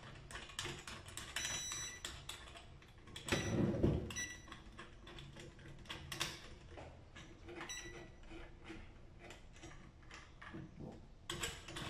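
Small clicks, knocks and scrapes of a Maadok X1 smart lock's metal and plastic parts being handled and fitted together by hand, including its lever handle. There is a louder knock about three and a half seconds in and another about six seconds in.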